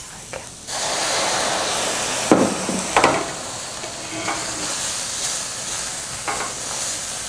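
A splash of water hitting a hot stainless steel sauté pan of onions and garlic, hissing and sizzling as it turns to steam: water sautéing in place of oil, cooling the pan so the garlic doesn't burn. The hiss starts suddenly just under a second in and slowly eases, with a couple of sharp knocks a little later and a silicone spatula stirring near the end.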